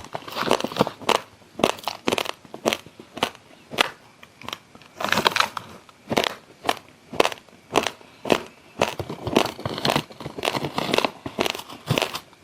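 Raw, uncooked basmati rice grains being chewed, crunching about twice a second, with a few longer crackling stretches of grinding.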